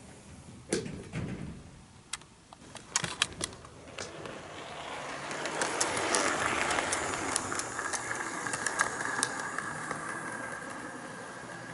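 HO-scale model train (Kato EF81 electric locomotive with a Suhafu 42 coach) running on Unitrack. Sharp clicks from the wheels over rail joints and points come first, then the running noise swells as the train passes close about six seconds in, leaving a steady motor whine.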